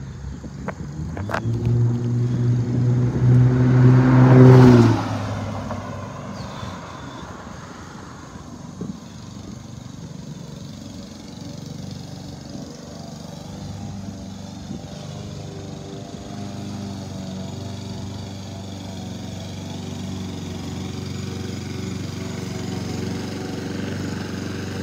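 A motor vehicle drives past close by. Its engine hum builds for about four seconds, and a rush of tyre noise peaks as it passes, about four and a half seconds in. Then it falls away quickly, leaving a fainter, steady engine drone.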